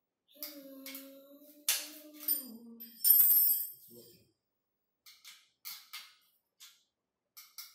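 Steel spanners clinking and scraping against the treadmill's metal frame and bolt as the upright post is tightened to the base, with a loud metallic jangle about three seconds in and lighter clicks near the end. A steady low tone runs under the first two seconds.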